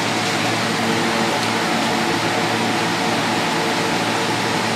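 Steady background hum with hiss, unchanging, with no distinct knocks or clicks.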